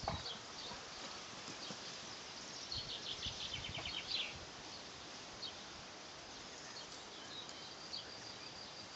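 Small birds chirping and twittering on and off. About three seconds in comes a brief flurry of rapid chirps along with a few soft thumps as puppies tussle on the grass.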